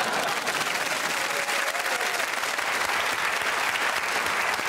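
Studio audience applauding, a steady patter of many hands clapping.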